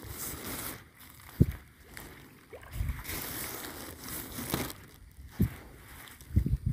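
Footsteps and phone handling bumps on a grassy pond bank, a few irregular low thumps over a steady rustling haze, with light water sloshing from tilapia stirring the surface near the edge.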